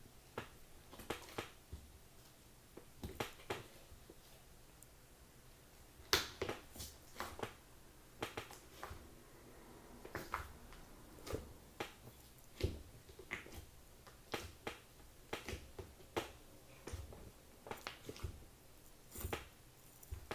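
Slime being squished and pressed by hand, making irregular sharp clicks and pops, sometimes several in quick succession.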